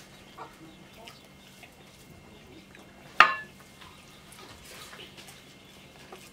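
An aluminium drinking mug set down on a table with a single sharp clink about three seconds in, ringing briefly. Around it are faint small sounds of hands working rice on steel plates.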